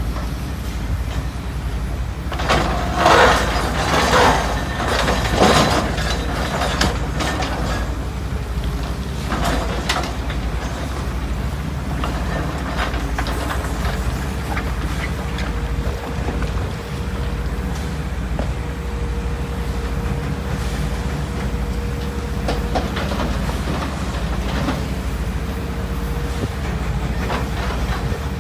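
Heavy diesel engines of an excavator and dump truck running steadily, with loud clattering crashes of a load being dumped into the truck's bed from about two to six seconds in, and another near ten seconds.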